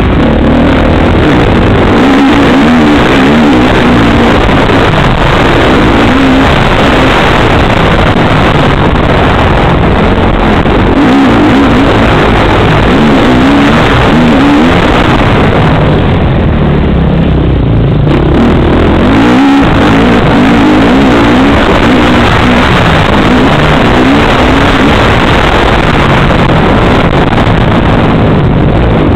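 Motocross motorcycle engine heard onboard, very loud, its revs climbing and dropping again and again as the rider accelerates, shifts and backs off through the track's turns. The throttle eases briefly about sixteen seconds in, and a single knock follows a few seconds later.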